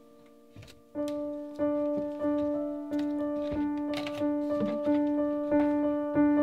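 Piano music, quiet at first, then from about a second in a steady line of notes repeated roughly every two-thirds of a second. A few short knocks sound over it.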